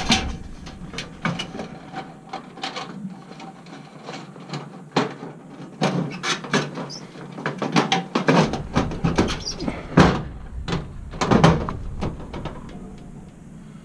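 Cover of a fluorescent ceiling light fixture being pushed and fitted back into place by gloved hands: an irregular run of clicks, knocks and rattles, with the loudest knocks about halfway through and again near the end.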